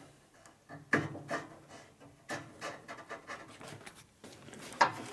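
Scattered light clicks and knocks of metal parts being handled on a bandsaw as its blade guide is adjusted by hand, with a sharper knock near the end; the saw itself is not running.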